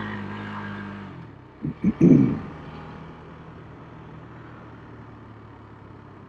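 Motorcycle engine running on the move: a steady hum that eases off about a second in, a brief louder burst around two seconds, then a quieter low running note.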